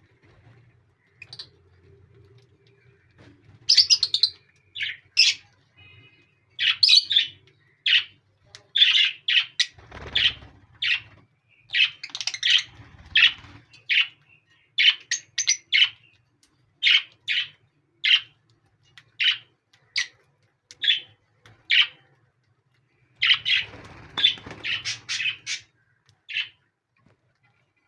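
Pet lovebirds chirping: a long run of short, sharp, high-pitched chirps, one or two a second, that starts a few seconds in and stops near the end.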